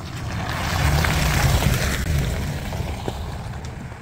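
2022 Ford Bronco with a 2.7-litre twin-turbo V6 and 35-inch mud tyres driving past on a gravel road: low engine rumble and tyre noise on the gravel growing to a peak about a second and a half in, then fading as it moves away.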